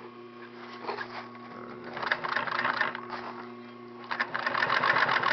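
Hand-sewing a buckle strap: needle and thread drawn through the material in two stretches of rasping, one about two seconds in and a longer one from about four seconds, over a steady electrical hum.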